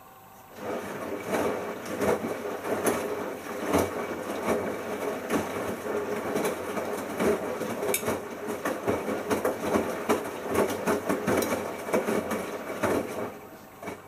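Bosch Logixx WAS32461 washing machine's drum turning during the second rinse, tumbling a small load of shirts through the rinse water with a run of irregular knocks and clatter. It starts about half a second in and stops shortly before the end as the drum pauses.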